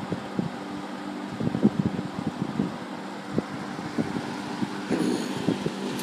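Vintage Dominion box fan running on low speed: a steady motor hum under the rush of air from the blades, with scattered light knocks and clicks.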